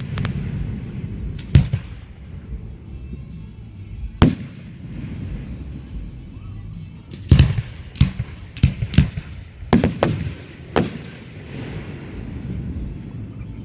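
Fireworks exploding: single bangs about one and a half and four seconds in, then a quick run of about eight bangs between about seven and eleven seconds, over a steady low rumble.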